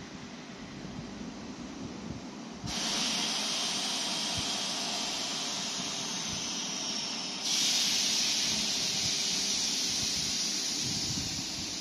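Steady hiss of air venting from a regional train standing at the platform. It starts suddenly about three seconds in and gets louder again about seven and a half seconds in.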